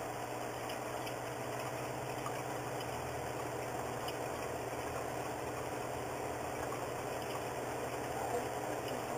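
Steady low machine hum with faint scattered ticks, unchanging throughout.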